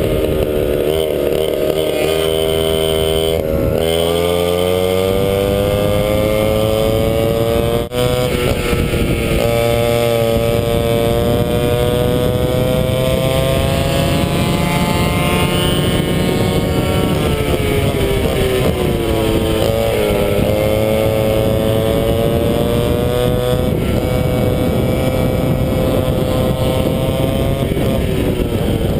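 Vintage 100cc McCulloch MC8 two-stroke kart engine running hard at high revs, the pitch climbing as it pulls out of a corner and on the straight, falling away briefly and rising again about two-thirds of the way through.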